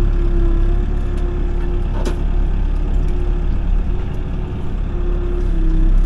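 Excavator diesel engine running steadily with a constant whine over its low drone, heard from inside the operator's cab; a single sharp knock about two seconds in.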